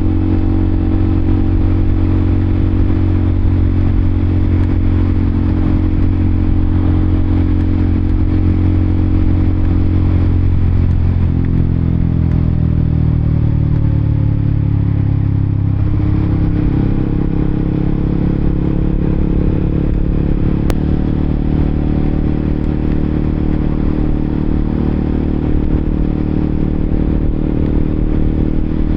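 Honda CBR K45R motorcycle engine running on the move, steady at first. About a third of the way in its pitch falls, then it holds a steady lower note through the rest.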